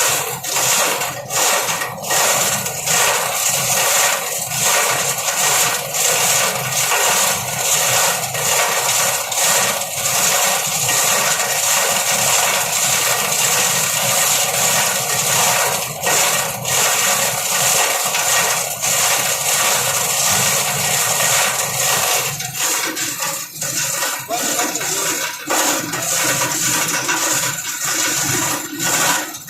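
Plastic scrap grinder running under load: a loud, steady rushing noise with irregular sharp clacks as pieces of plastic are chopped by the blades.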